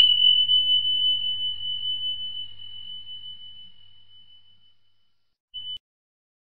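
A logo-intro chime: one high, pure tone struck once and ringing away slowly over about five seconds. A short snatch of the same tone sounds again near the end and cuts off suddenly.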